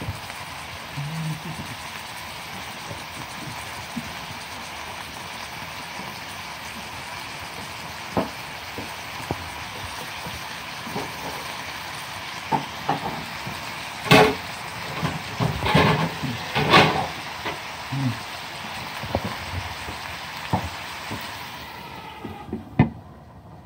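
Chicken pieces shallow-frying in oil in a nonstick frying pan: a steady sizzle with sharp pops and clicks that come more often in the second half. Near the end a glass lid goes onto the pan and the sizzle drops away sharply.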